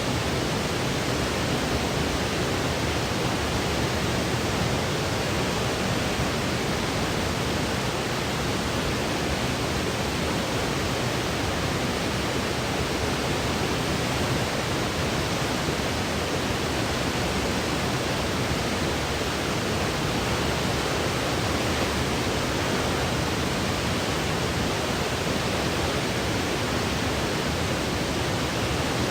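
Continuous white noise played as a baby sleep aid: a steady, unchanging hiss with a full low end.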